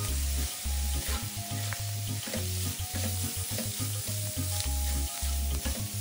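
Oil sizzling as shredded carrot and chicken are stir-fried in a stainless-steel wok, with a silicone spatula repeatedly scraping and tossing the ingredients. Low background music notes sound underneath.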